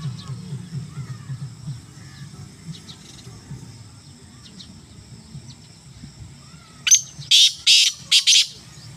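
Black francolin calling: four loud, quick notes in a burst about seven seconds in, over faint chirps of small birds.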